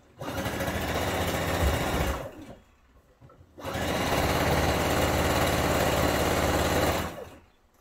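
Pfaff expression 3.5 electronic sewing machine stitching fabric in two steady runs, the first about two seconds long and the second about three and a half, with a short stop between them.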